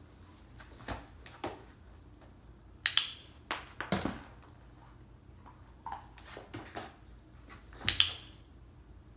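Irregular small knocks, clinks and rustles of handling, with louder crisp clattering bursts about three seconds in and again near the end.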